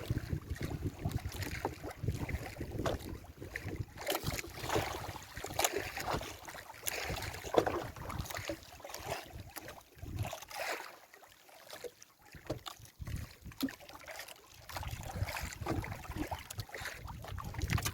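Wind buffeting the microphone and water sloshing around a small fishing boat in choppy sea, with scattered knocks and splashes; it quiets down for a few seconds just past the middle.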